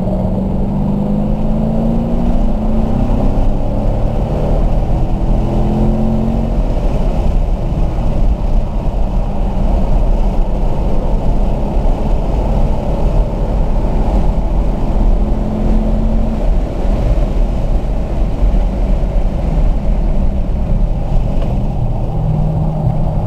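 Car engine heard from inside the cabin, pulling hard in third gear with its pitch rising from about 2,800 to over 4,000 rpm, then dropping as the car slows near the end, over constant wind and road noise.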